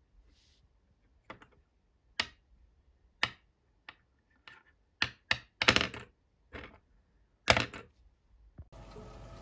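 A plastic ballpoint pen tapped, picked up and set down on a wooden desk: a string of irregular sharp taps and clicks, some in quick clusters.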